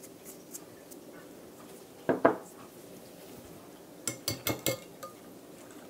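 Kitchen utensils clinking and knocking against a glass mixing bowl: a double knock about two seconds in, then a quick run of four sharp clinks about four seconds in.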